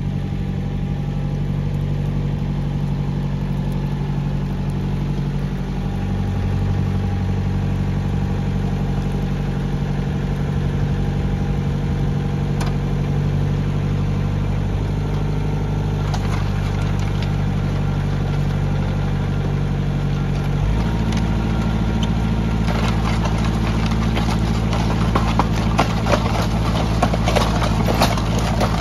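Tractor engine running steadily as it drives a three-point-hitch post hole auger. About two-thirds of the way through the engine note changes and the auger starts a dense crackling and grinding as it bores into rocky, gravelly soil.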